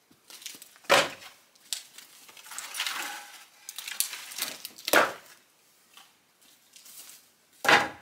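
Sawmill slab wood offcuts clattering and knocking together as they are pulled from a crate and set on a stack, with sharp wooden knocks about a second in, about five seconds in and just before the end, and a rattling clatter in between.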